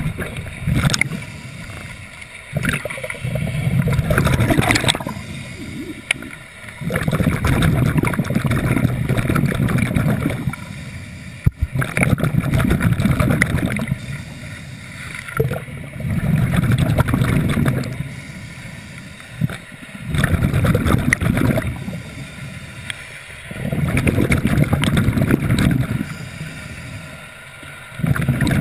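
Scuba diver breathing through a regulator: exhaled bubbles gurgle and rumble past the camera housing in repeated bursts a few seconds apart, with quieter gaps between them while inhaling.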